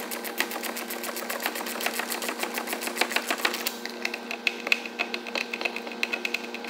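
Hand ratchet clicking rapidly as it backs out a Torx door hinge bolt on a Jeep Wrangler. The clicking quickens and rings a little higher about four seconds in, as the loosened bolt turns more freely.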